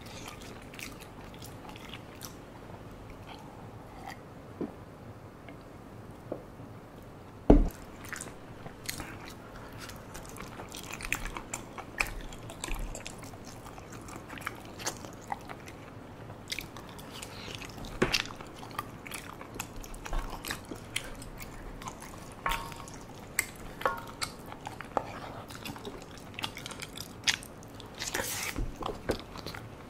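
Close-miked eating of spicy tteokbokki: chewing soft rice cakes and eating the thick red sauce from a spoon, with a steady run of small clicks and smacks. A sharp knock about seven and a half seconds in is the loudest sound.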